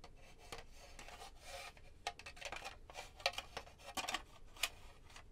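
Plastic parts of a Sentro 22 circular knitting machine being handled and pressed together: light clicks and soft plastic-on-plastic rubbing, with a few sharper clicks in the second half.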